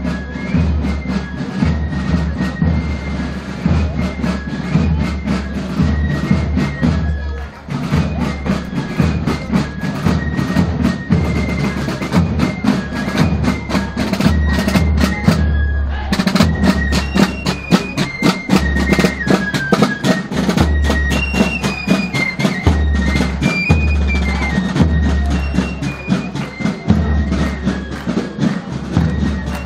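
A parade drum band playing: side drums beaten in fast, dense rolls and strokes, with a high stepping melody and deep low notes over them.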